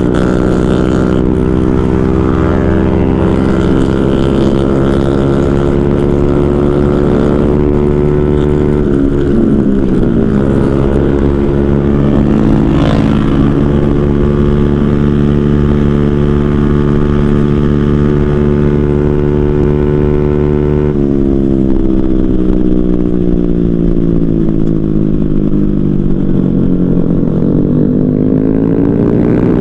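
Motorcycle engine running steadily under way, recorded from the bike itself. Its pitch dips sharply and climbs back about nine seconds in, changes suddenly about two-thirds of the way through, and dips and rises again near the end.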